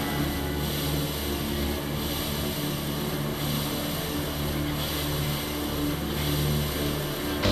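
Steady low droning hum with a faint hiss above it, even throughout.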